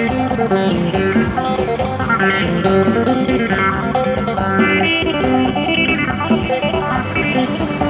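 Thai phin, the Isan plucked lute, playing a quick solo melody of plucked notes over steady held drone tones.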